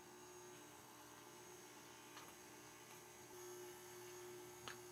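Near silence: a faint steady hum, with two faint light ticks.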